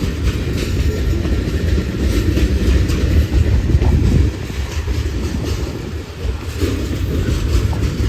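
Freight train cars rolling past: a steady, loud low rumble with irregular clicking of the wheels on the rails.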